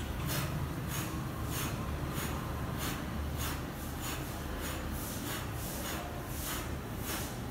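A man blowing his breath out sharply in a steady rhythm, about three short forceful exhales every two seconds, in time with his arm swings during a warm-up exercise.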